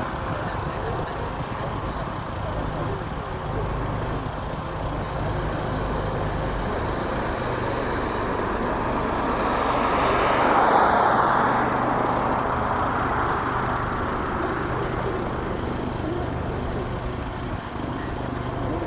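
Westland Lynx helicopter running on its arrival, with a steady low rotor hum and turbine noise that swells louder about halfway through and then eases.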